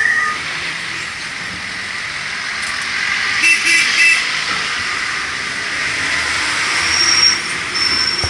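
Steady rushing noise of a moving vehicle, with a few short high beeps about three and a half seconds in and a thin high whistle starting near the end.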